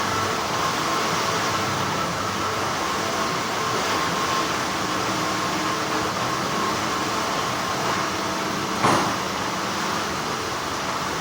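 Continuous hum of textile factory machinery, a steady noisy drone with a faint held tone in it. About nine seconds in there is one short sharp clack.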